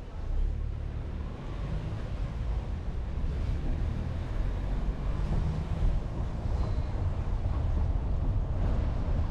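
Low, steady rumble of wind buffeting the microphone outdoors, with faint street noise in the background.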